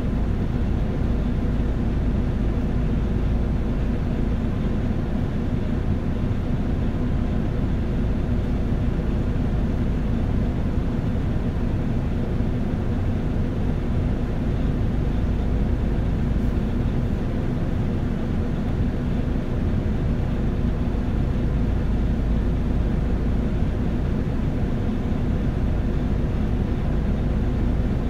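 Nissan Diesel UA city bus's diesel engine and road noise as heard inside the cabin: a steady low drone while the bus runs along at an even pace, with no gear changes, stops or other events.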